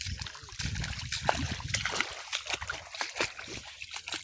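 Footsteps wading through shallow muddy water, an irregular run of splashing and sloshing steps.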